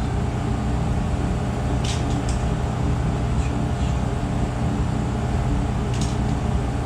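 Steady low machine hum, with a few light clicks about two seconds in and again near the end.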